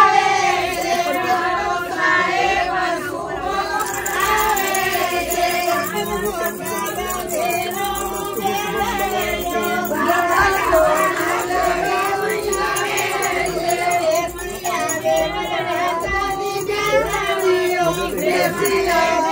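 A group of voices singing a devotional song together over a steady held drone.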